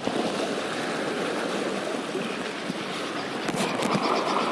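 Steady rushing of moving water, with a few faint clicks about three and a half seconds in.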